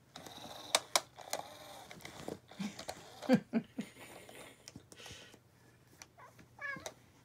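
Motorised SmartyKat Hot Pursuit cat toy running, its wand moving under a nylon cover with sharp clicks and rustling as two Bengal cats paw at it. A few short chirp-like vocal sounds come in, the loudest about three seconds in, and another warbling one near the end.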